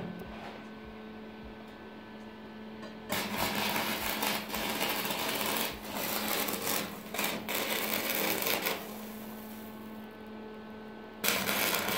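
Electric arc welding on steel plate: a dense crackle that starts suddenly about three seconds in, stops after about five seconds and starts again near the end, over a steady low hum from the welder.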